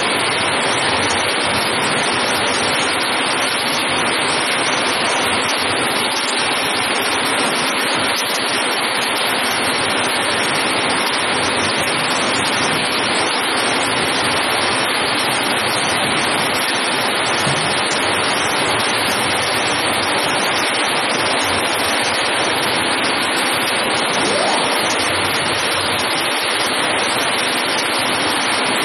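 Metal shredder running, its toothed rotating cutters grinding crumpled sheet-metal scrap, heard as a loud, steady, even noise without separate knocks.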